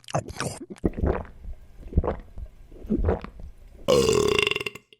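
A run of burps about a second apart, then near the end a short, higher-pitched sound that holds one pitch.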